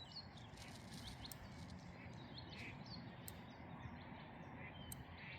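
Faint small-bird chirps, short high notes every second or so, over low outdoor background noise.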